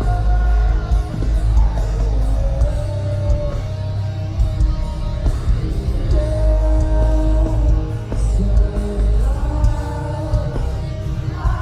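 Alternative metal band playing live at full volume, heavy bass and guitars under a singer holding long, slowly bending sung notes.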